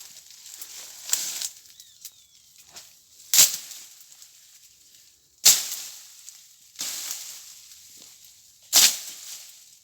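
Firewood being cut from a tree: three loud, sharp strikes on wood a few seconds apart, with fainter knocks between.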